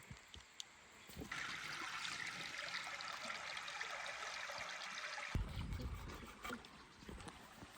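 Water trickling steadily for about four seconds, then cutting off, followed by a brief low rumble.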